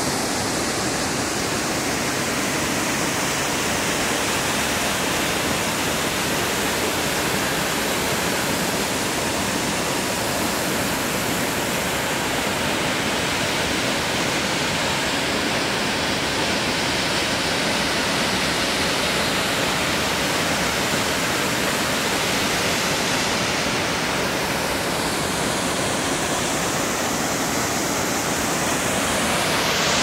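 Gjárfoss waterfall pouring into its plunge pool: a steady, even rushing of falling water. Near the end the high hiss shifts in tone.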